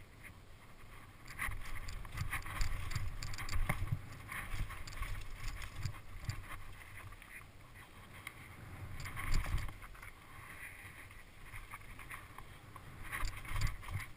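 Mountain bike descending a trail at speed: the tyres rumble over a wooden boardwalk and then dirt, and the bike rattles with irregular knocks from bumps. The hardest jolts come about nine seconds in and near the end.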